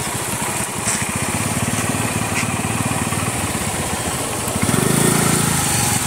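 Motorcycle engine idling close by with a steady rapid putter, growing louder for about the last second.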